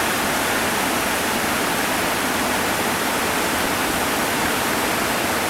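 Steady rushing of whitewater from a steep river rapid running at high water, an even noise with no breaks.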